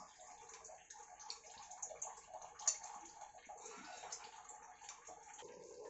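Hot frying oil crackling and sizzling faintly in a kadai as fried onion slices are lifted out with a metal slotted spoon, with light clicks of the spoon on the pan and one sharper click about halfway through.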